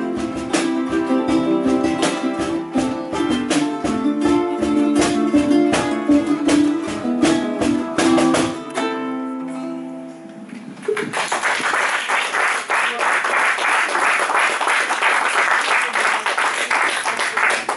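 Ensemble of ukuleles strumming a steady rhythm with no singing, the last chord ringing out and dying away about nine seconds in. Applause starts about a second later and continues to the end.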